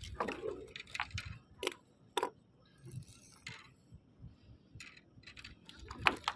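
Scattered light clicks and clinks at an irregular pace, about a dozen in all, as a freshly caught mackerel is worked off a metal microjig and its treble hook by hand.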